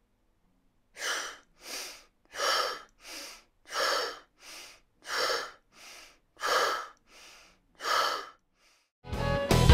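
Rhythmic exercise breathing: about six forceful hissing exhales through the mouth, each followed by a softer inhale through the nose, roughly one breath cycle every second and a half, as in a qigong breathing drill. Guitar music comes in near the end.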